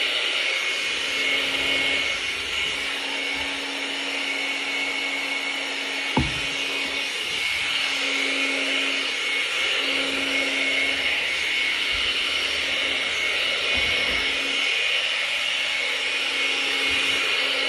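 Hair dryer running steadily, blowing air across wet acrylic paint, with one short knock about six seconds in.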